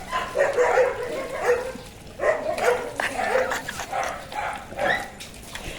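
Dog barking repeatedly in short calls.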